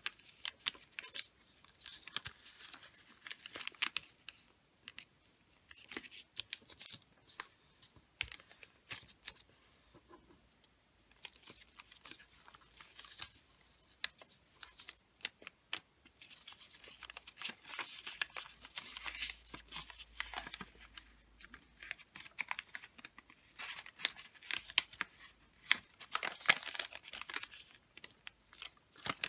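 A large sheet of wrapping paper rustling and crackling as it is folded by hand and pressed and creased flat against a tabletop, with irregular sharp crinkles and soft slides. It is busiest and loudest in the last few seconds.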